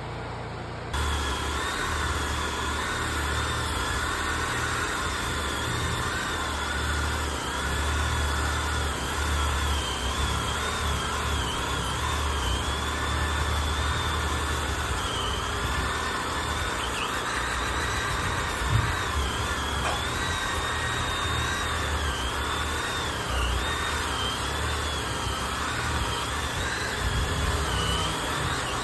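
Electric sander running against wooden log walls. Its high motor whine wavers and dips several times as the sander is worked over the wood.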